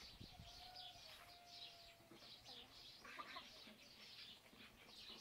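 Small birds chirping faintly and rapidly throughout, with a distant rooster's drawn-out crow in the first two seconds.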